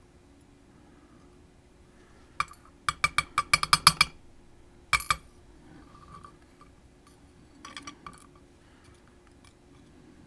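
Small metal clicks and clinks from handling a Sargent Keso lock and its picking tools: a single click, then a quick run of about ten clinks, a pair shortly after, and a small cluster near the end.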